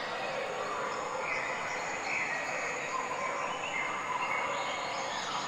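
Steady outdoor background noise with faint high chirping.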